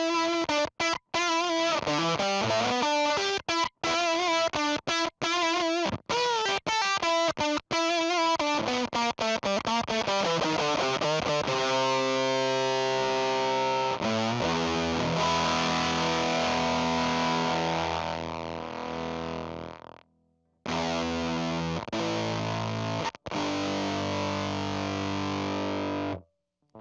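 Electric guitar through a Fuzz Factory fuzz pedal, distorted: fast, choppy staccato notes with bends and wobbling pitch for about the first ten seconds. Then come sustained fuzzed notes and chords that fade away about two-thirds of the way through, and two more held chords, each cut off abruptly.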